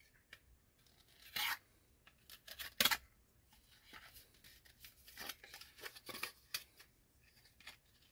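Hands handling a thin cardboard box and picking at its ties: scattered light scrapes and rustles of cardboard, two louder ones within the first three seconds, then a run of small ones.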